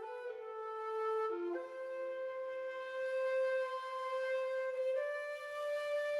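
Intro music: a flute-like melody of a few long held notes, changing pitch a handful of times.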